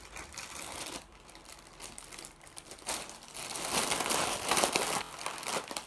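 Foil balloon crinkling and rustling as it is handled and squeezed while helium is drawn from it. It is louder from about halfway through.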